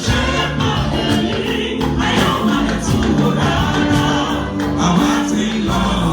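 Church choir singing a gospel anthem with band accompaniment and a steady beat.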